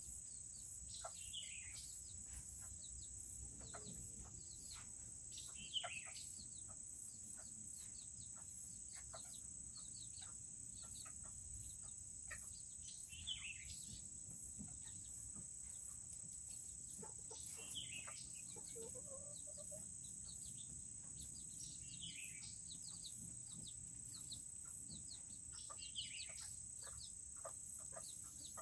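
Serama chickens clucking quietly, with a short high chirp falling in pitch every four seconds or so and a steady high insect trill throughout.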